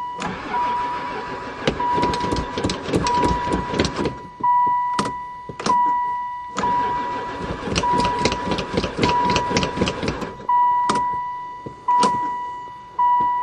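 Long-idle van's starter cranking the engine in two long tries without it catching, a sign it has no fuel or no spark. A warning chime beeps on and off throughout, with a few sharp clicks between the tries.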